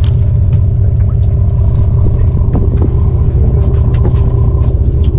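Boat's engine running steadily: a deep, even drone with a constant hum over it, and a few light scattered clicks.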